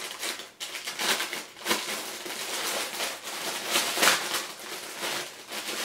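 Crinkly plastic wrapping rustling and crackling in irregular bursts as a packaged item is handled and unwrapped, loudest about four seconds in.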